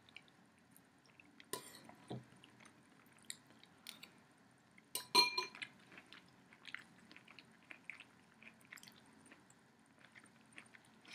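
A spoon clinking against a soup bowl several times, the loudest clink about five seconds in and ringing briefly, with small eating sounds between.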